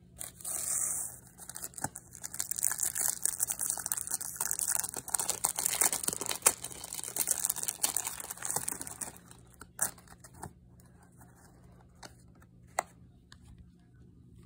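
Foil Yu-Gi-Oh! booster pack crinkling as it is torn open and handled for several seconds. After that come a few separate sharp clicks as the cards are handled.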